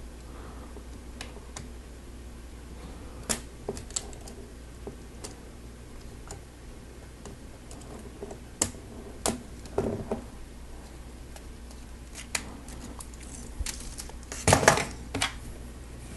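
Plastic Lego Technic parts clicking and snapping as they are handled and pressed together: scattered sharp clicks, with a louder cluster of clicks near the end, over a low steady hum.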